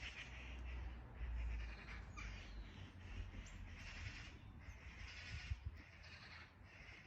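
Birds calling outdoors, a run of repeated calls each about half a second to a second long, over a low steady rumble.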